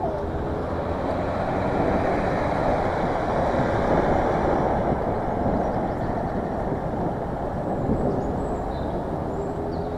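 Road traffic noise: motor vehicles running close by in slow urban traffic, a steady rumble that swells a little midway.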